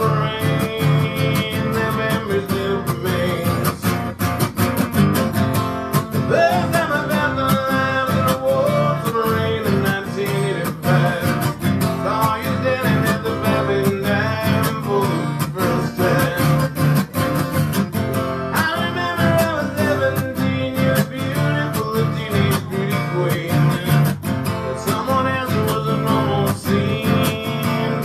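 A man singing solo over his own strummed acoustic guitar, the voice carrying a melody above steady, even strumming.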